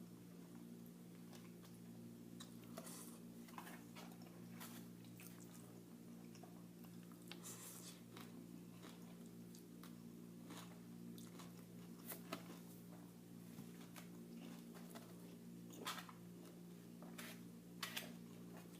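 Close-up chewing and biting: irregular wet mouth smacks and light crunches, with a few sharper smacks near the end, over a steady low hum.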